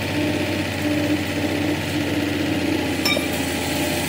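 An engine running steadily, with a single ringing metallic clink about three seconds in.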